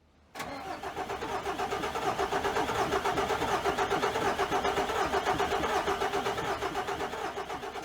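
Mercedes-Benz OM501LA V6 turbo diesel idling with a regular knock pulsing several times a second through the engine note, alongside blow-by: the sign of broken piston rings on the No. 2 cylinder.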